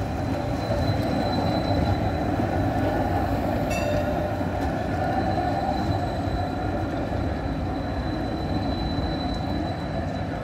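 Stadler Variobahn low-floor trams passing close on wet street track, a steady rolling rumble of wheels and running gear with a faint high whine over it. A short sharp click sounds about four seconds in.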